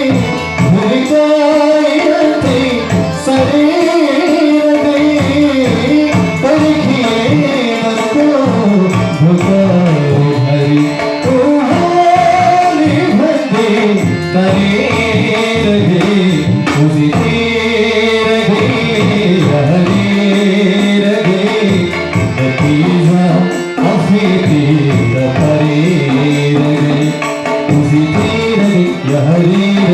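A song: a singer's voice over tabla and other instruments, playing continuously.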